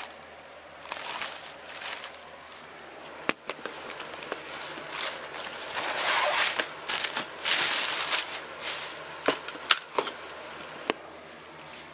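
Packaging rustling and crinkling in bursts while a camcorder tripod is unpacked and handled, with several sharp clicks in the second half.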